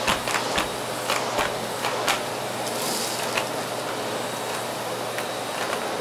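Miele S6 canister vacuum cleaner running steadily, its floor head going over carpet, with a quick run of sharp ticks and rattles as shredded paper strips are sucked up the wand; the ticks thin out after about three and a half seconds.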